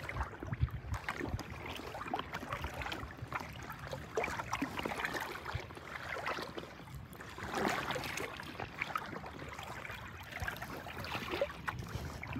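Rippled bay water lapping and splashing irregularly against a kayak's hull, with a few louder splashes.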